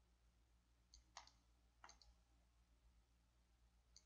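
Near silence with a faint low hum, broken by a few faint computer mouse clicks: a small cluster about a second in, another about two seconds in, and one near the end.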